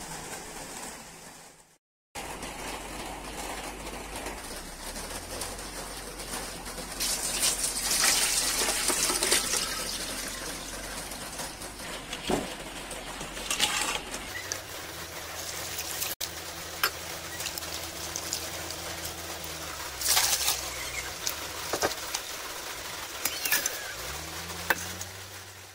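Water splashing and running as raw potato slices are rinsed and drained in a steel colander, with a louder run of water a few seconds in and a few sharp clinks of slices or hands against the metal. A low steady hum runs underneath.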